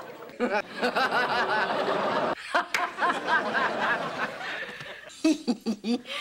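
A woman snickering: quick runs of short, high laughing breaths that break off and start again, with a lower, choppier laugh near the end.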